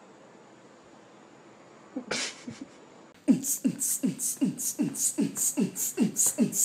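A rhythmic beat of deep bass hits, each falling in pitch and paired with a sharp high hiss, about three a second, starting about three seconds in. Before it there is only faint hiss and a short noisy burst about two seconds in.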